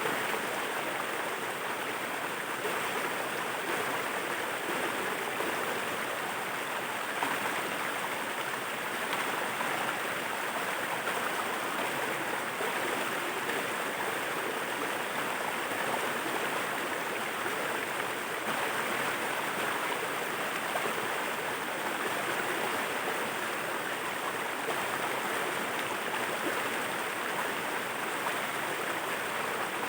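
Waterfall: a steady rush of falling and running water.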